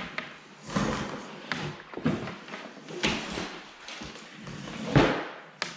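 Cables being fed and pulled through a hole in a drywall wall box, sliding and rubbing against the opening: a series of scraping swishes, roughly one a second, the loudest near the end.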